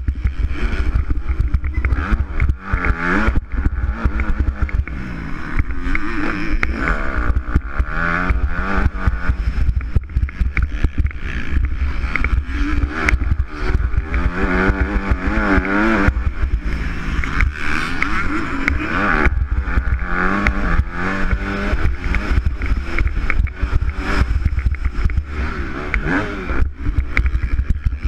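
MX2-class motocross bike engine revving hard and dropping off again and again as the rider accelerates, shifts and brakes around the dirt track, with a fast rapid wobble in the revs about halfway through. A heavy low rumble of wind buffets the helmet-mounted microphone underneath.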